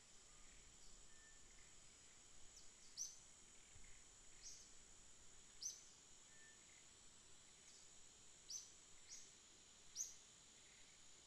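Faint outdoor ambience: a steady high insect drone with a bird's short, sharp falling chirps repeating every second or two.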